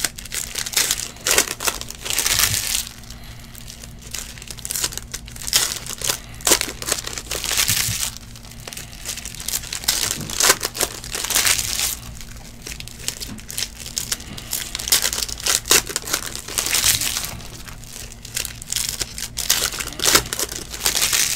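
Foil wrappers of 2019 Panini Unparalleled Football trading-card packs crinkling in irregular bursts as the packs are handled and opened.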